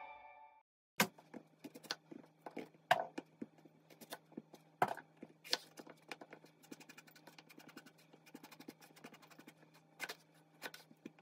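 Kitchen knife cutting an eggplant on a bamboo cutting board: irregular soft knocks as the blade meets the board, with a faint steady hum underneath.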